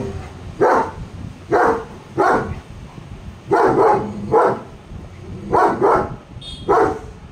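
German Shepherd dogs barking repeatedly, about nine barks in clusters of two or three.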